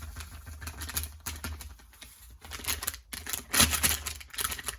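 Plastic sachet of powder crinkling and crackling as it is handled and emptied: rapid, irregular clicks, thickest and loudest a little before the end.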